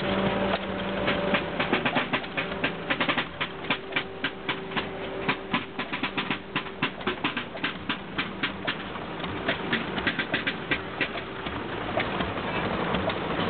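Machinery clattering: rapid, uneven clicks and clacks over a steady low hum.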